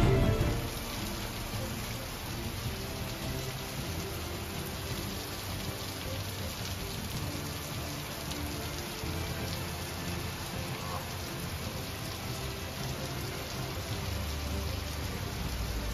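Steady thunderstorm downpour: an even hiss of rain falling on a driveway, parked trucks and trees.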